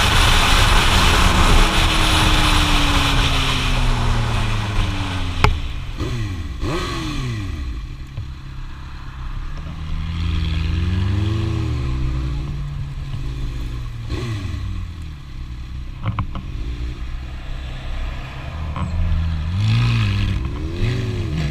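Sport motorcycle heard from the rider's camera: wind rush and an engine note falling as the bike slows, then the engine running at low speed with several short revs that rise and fall. A sharp click about five seconds in.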